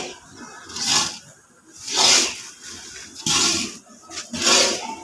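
Long-handled metal spatula scraping through a gritty mix of lac and corundum grit in an iron wok, a rasping stroke about once a second, four times. It is the continuous stirring that blends the grit into the lac for a grinding wheel.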